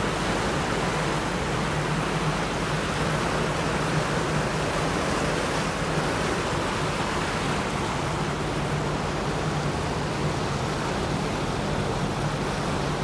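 Steady rushing wind-and-water noise aboard a moving river tour boat, with the boat's engine droning low and even underneath.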